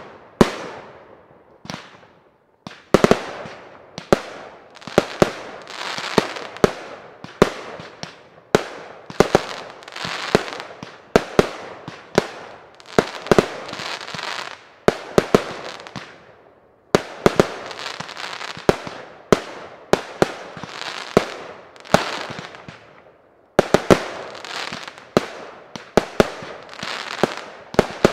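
Firework display fired from batteries (cakes): a steady run of sharp aerial bangs, about one to three a second, each trailing off before the next.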